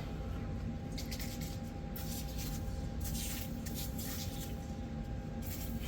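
CLP gun cleaner-lubricant sprayed from an aerosol can onto the rifle's parts in several short hisses.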